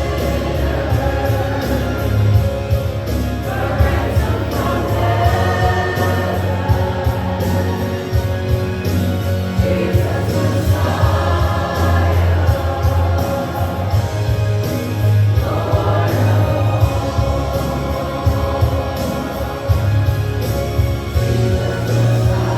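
Choir singing a gospel worship song over instrumental backing with heavy bass and a steady beat.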